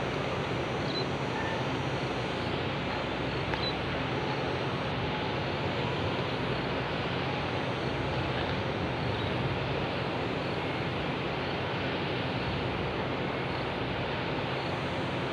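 Steady outdoor ambient noise, an even hiss with a faint low hum underneath and no distinct events.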